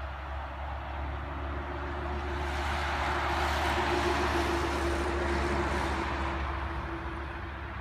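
A passing vehicle out of sight, its noise swelling to a peak about four seconds in and fading away again, with a steady hum running under it.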